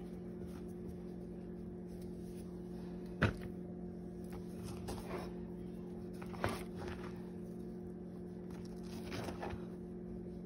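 Hand tossing chicken strips in a bowl of dry seasoned breading mix, with soft rustles and a few short knocks against the bowl, the clearest about three and six and a half seconds in. A steady low hum runs underneath.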